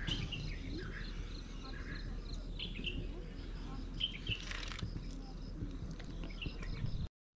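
Birds chirping in short scattered calls over an insect's evenly pulsing high call and a steady low rumble. The sound cuts out briefly just before the end.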